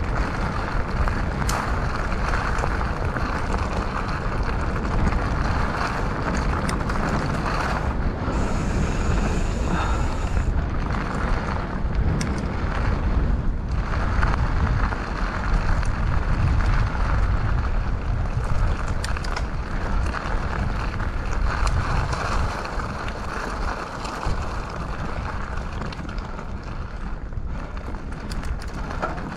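Mountain bike being ridden along a trail: wind rushing over the action camera's microphone and tyres rolling over rough ground, with frequent sharp knocks and rattles.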